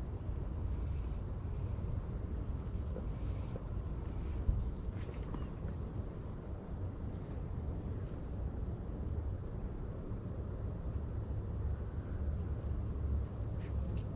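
Insects, cricket-like, chirring in one steady, unbroken high tone over a low rumble.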